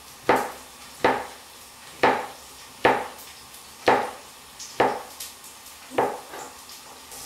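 Kitchen knife slicing button mushrooms on a cutting board: a sharp knock of the blade against the board about once a second, eight or so strokes in all, the last near the end.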